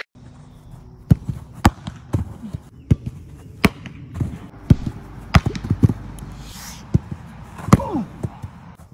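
Footballs being struck and thudding on a pitch: about a dozen sharp, separate knocks, roughly one a second. A short falling cry comes near the end.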